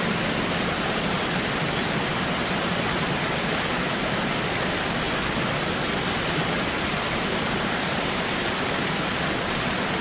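Waterfall: a steady, even rush of falling water with no change in level.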